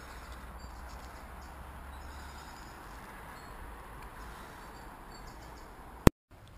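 Quiet outdoor ambience by a river: a steady hiss with a few faint bird chirps. About six seconds in, a sharp click and a brief drop to dead silence where the recording is cut.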